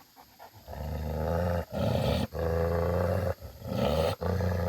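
Bhote Kukur (Himalayan livestock guardian dog) growling angrily: a deep, low growl starting just under a second in, held in long stretches broken by short breaths, as an aggressive warning.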